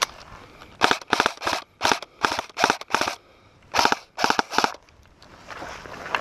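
Airsoft gun firing a string of sharp shots: about seven in quick succession over roughly two seconds, a short pause, then three more.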